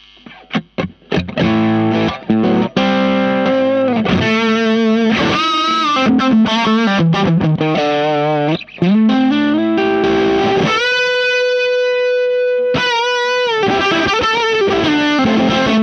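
Tomkins T-style electric guitar through a Space Sounds Meteor Distortion pedal on its boost setting, pushing the dirty channel of a Ceriatone OTS Mini 20 amp head into a Two Notes Captor X cab sim. It plays crunchy chords and lead phrases with wavering vibrato notes, and a long held note a little past the middle.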